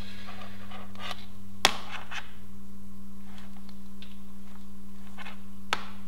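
Hands handling a stripped RG58 coax cable and its cut-off pieces on a cutting mat: a few light clicks and taps, the sharpest about a second and a half in and another near the end, over a steady low electrical hum.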